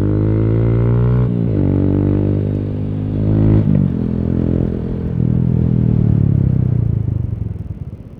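Yamaha YBR125G motorcycle's single-cylinder engine pulling under throttle. Its pitch dips and climbs again twice, about a second and three and a half seconds in, as gears change. Near the end it drops away as the throttle closes.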